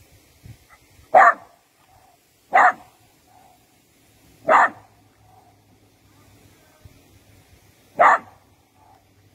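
A dog barking: four short single barks, a second or more apart, with the last one after a longer pause.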